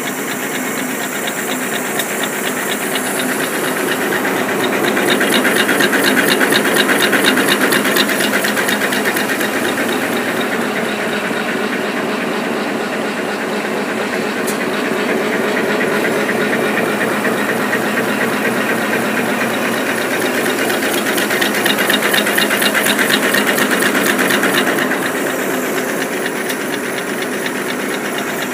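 High-speed automatic napkin folding machine running, a fast even mechanical clatter with a hiss over it. It swells louder twice, for a few seconds each time, then settles back.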